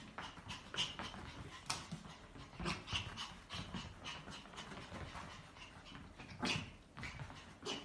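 Pomeranian puppy panting in short, irregular breaths as it bounces around in play, with a louder burst about six and a half seconds in.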